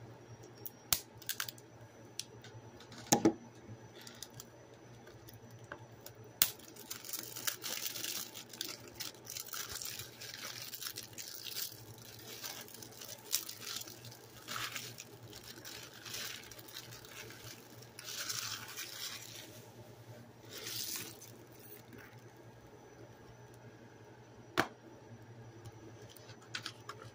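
Clear plastic shrink wrap on a 4K Blu-ray case being torn off and crumpled by hand, a long crackling rustle in the middle. A few sharp clicks and knocks from handling the case come near the start and once near the end.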